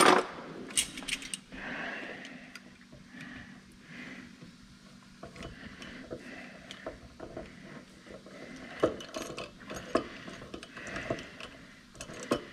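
Metal kitchen utensils being rummaged and handled: scattered clinks, clicks and knocks, with a sharp knock at the start.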